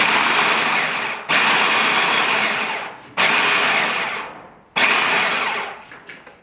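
Cuisinart food processor pulsed four times while chopping pecans fine. Each pulse starts suddenly and dies away as the motor coasts down.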